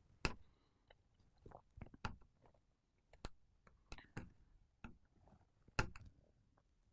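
Small, sharp clicks and taps, irregularly spaced, from a prying tool working at the tight antenna connectors on an iPhone 7 Plus logic board. The two loudest come early and near the end.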